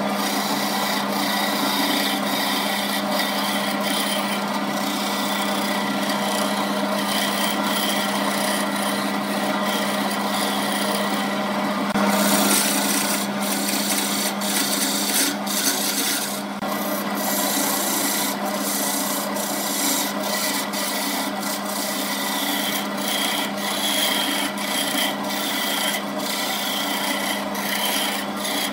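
Wood lathe running with a steady motor hum while a hand-held turning chisel cuts the spinning wooden vase blank, a continuous scraping noise with many short clicks as shavings come off. The cut gets louder briefly about twelve seconds in.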